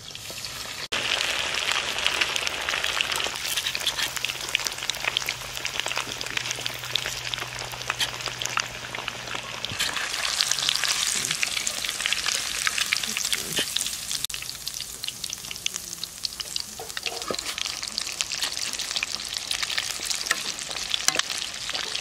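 Crumb-coated fish steaks deep-frying in a wok of hot oil: a dense, steady sizzle full of crackling and popping, starting abruptly about a second in.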